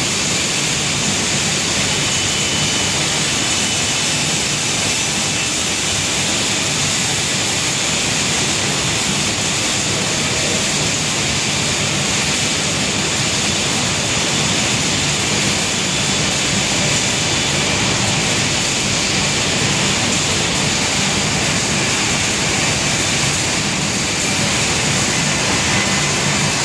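Industrial dust extraction plant running: a steady, loud rush of air from the extraction fan, driven by its inverter at 42 Hz, with a low hum beneath.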